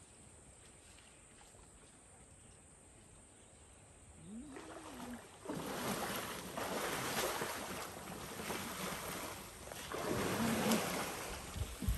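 Elephants splashing and sloshing water at a waterhole. After a quiet start and a brief low call that rises and falls, a loud, rough, surging splash noise sets in about five seconds in and keeps going.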